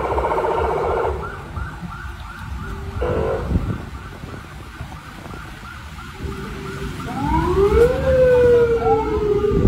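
Electronic vehicle siren on the street: a fast warbling yelp that stops about a second in, a fainter quick pulsing through the middle, then from about two-thirds of the way in, overlapping wails that rise and then slowly fall.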